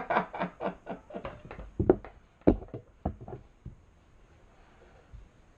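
A quick, irregular run of about a dozen sharp clicks and knocks from hard objects being handled, the loudest about two seconds in, stopping after about three and a half seconds.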